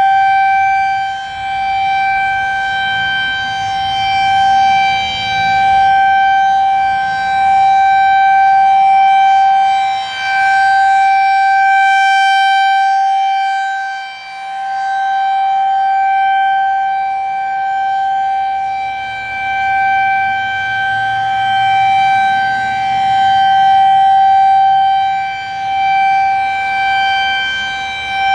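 Federal Signal 2001-SRN rotating electromechanical outdoor warning siren sounding a steady, high-pitched tone during a routine test. Its pitch holds constant while the loudness swells and fades every few seconds as the rotating horn sweeps toward and away.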